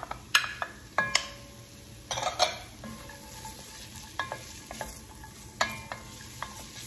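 Diced onion and carrots sizzling in hot olive oil in an enamelled cast iron Dutch oven, stirred with a spoon that scrapes and knocks against the pot. Several sharp knocks ring briefly.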